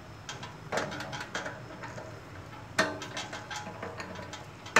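Drill chuck of a bench drill being tightened with a chuck key: a series of small metallic clicks and clinks as the key's teeth turn the chuck. Two of the clicks ring briefly, one about a second in and one near three seconds.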